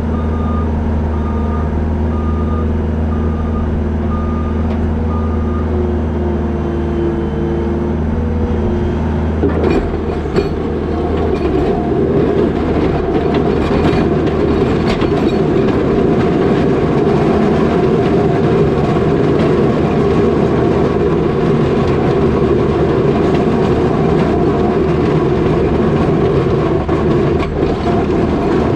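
New Holland L220 skid steer's diesel engine running, its reversing alarm beeping evenly for the first several seconds. About nine seconds in, the engine turns louder and rougher, working under load, with a few knocks soon after.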